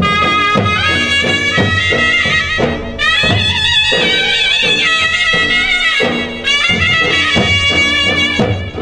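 Loud folk dance music for a raas: a reedy, wind-instrument-like lead melody with wavering pitch over a steady drum beat of about two strokes a second, pausing briefly twice.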